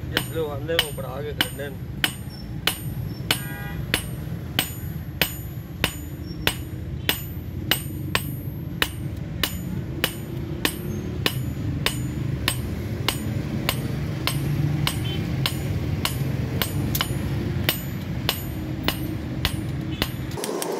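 Hand hammer striking a hot steel knife blank, forged from a ball bearing, on an anvil block. The strikes are sharp and metallic and come in a steady rhythm of about two a second, over a low steady rumble.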